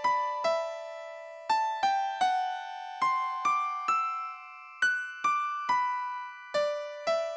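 Background music: a simple melody on a piano-like keyboard, played one note at a time at about two notes a second with short pauses. Each note rings out and fades.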